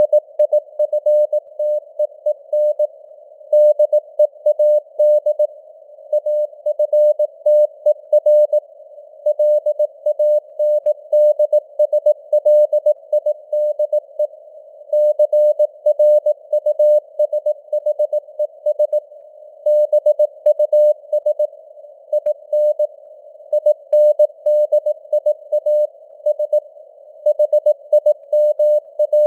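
Morse code (CW) at 18 words per minute: a single steady tone keyed on and off in dots and dashes, with short pauses between words. A narrow band of simulated radio-receiver hiss surrounds the tone.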